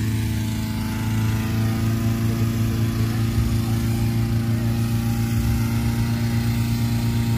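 Gas-engine balloon inflator fan running steadily at speed, blowing cold air into a hot-air balloon envelope during cold inflation.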